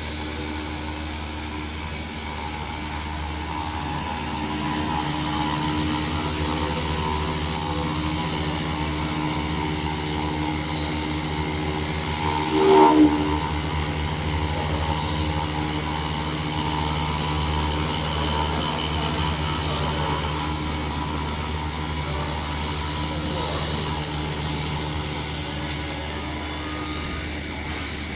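Senke SKW-1625FB CNC router's spindle running steadily as its cutter carves a block of foam, a steady machine hum and whine. A brief louder noise comes about halfway through.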